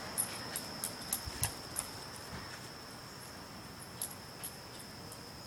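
Insects, likely crickets, trilling steadily on one high note, with a few light clicks scattered through the first two seconds and twice more about four seconds in.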